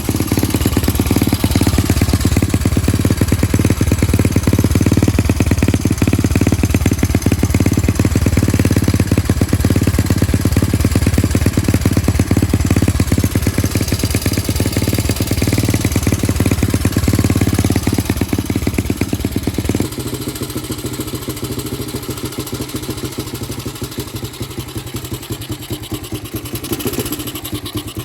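Small Honda single-cylinder four-stroke motorcycle engine running at a fast idle, with quick even firing pulses. A little past two-thirds through, the sound drops suddenly and runs on quieter and thinner.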